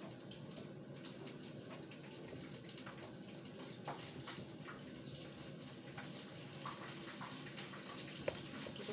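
Kitchen tap running steadily, with a few light knocks of handling mixed in.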